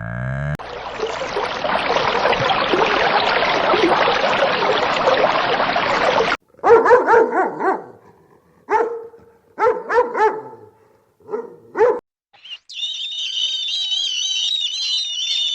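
A dense, noisy stretch lasting about six seconds, then a dog barking about six times in short separate barks, then a high warbling squeal near the end.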